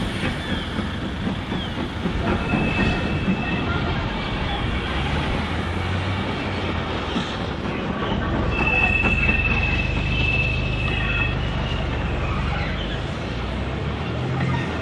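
Steam-hauled passenger train rolling slowly around a tight curve, its rumble steady, with wheel flanges squealing in a high steady tone: briefly about two seconds in, and again for about three seconds near the middle. Gusty wind buffets the microphone.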